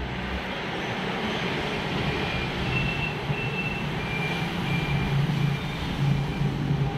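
Steady motor-vehicle running noise with a low hum, and a run of short high-pitched beeps, about two a second, from about two seconds in.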